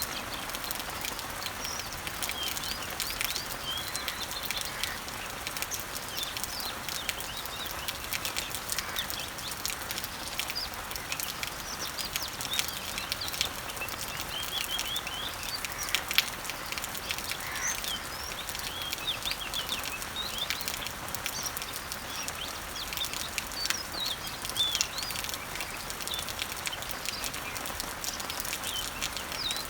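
Steady rain pattering on garden leaves, with many small birds chirping and twittering throughout.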